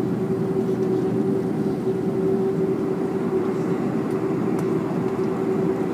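Airliner cabin noise as the jet rolls on the ground after landing: a steady rumble of engines and airflow with a constant hum-like tone running through it.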